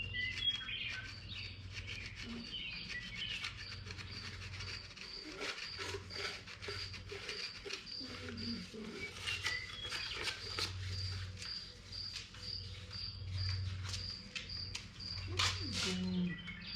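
Emery cloth rubbing by hand on a Chevy 350's oil pan gasket surface, irregular short scraping strokes, with a high chirp repeating about twice a second.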